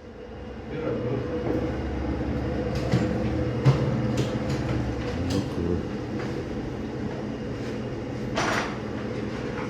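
Steady mechanical hum holding one constant pitch over a low rumble, with scattered clicks and knocks and a short scrape about eight and a half seconds in.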